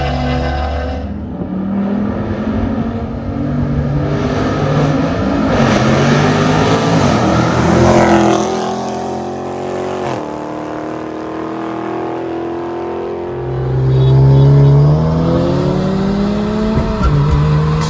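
Car engine accelerating hard, its pitch climbing through the revs, dropping once about ten seconds in as a gear change, then climbing again and getting louder.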